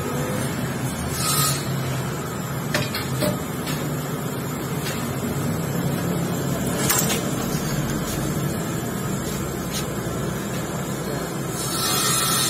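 A lathe running as it machines out the worn lever hole in a motorcycle clutch cover: a steady motor hum under the scrape of the cutting tool, with a few sharp clicks.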